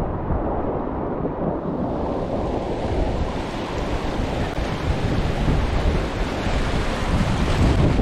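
Whitewater of a muddy, high-water river rushing and churning around a kayak. The sound is a continuous rush that turns brighter and hissier from about two seconds in.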